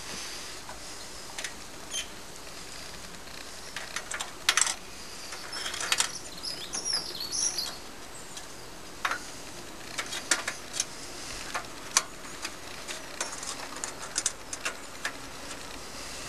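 Scattered light clicks and knocks of hand work on a table-mounted router and its fittings while the motor is switched off, with a denser run of clicks in the first half. A few high chirps come in around the middle.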